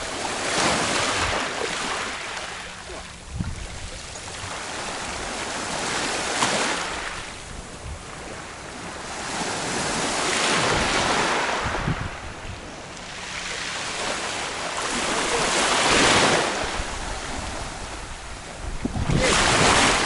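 Sea waves washing onto the shore in slow surges, each swelling up and falling away, about every four to five seconds.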